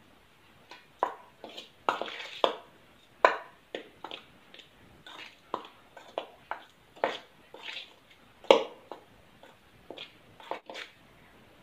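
A hand stirring dry wheat flour and spices in a stainless steel bowl: irregular short taps and scrapes of fingers against the steel, one or two a second, with the loudest near the middle.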